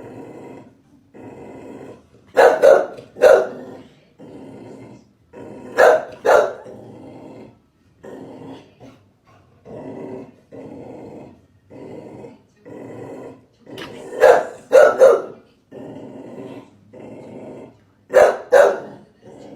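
A Chow Chow barking: a steady run of quieter, lower sounds about once a second, broken four times by loud, sharp barks that come mostly in pairs about half a second apart.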